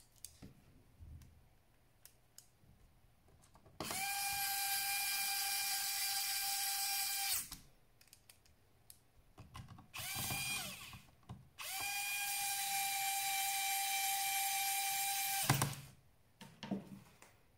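Small electric power screwdriver running three times: about 4 s, then about 1.5 s, then about 4 s. Each run is a steady high whine that starts abruptly and winds down in pitch as it stops. Faint clicks and taps of handling come between the runs.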